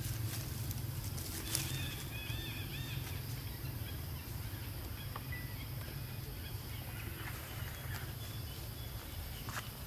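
Outdoor forest ambience with a steady low rumble. About two seconds in comes a short run of four or five quick, high chirping calls from an animal, and faint scattered ticks and rustles follow.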